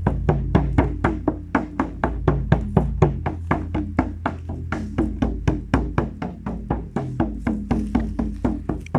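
Music: a fast, steady percussion beat of sharp strikes, about four to five a second, over a low steady drone.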